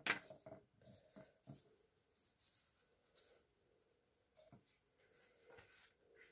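Small dried toothpaste tablets tipped from a metal sieve click into a glass jar. There is one sharp click right at the start, then a few fainter, scattered clicks.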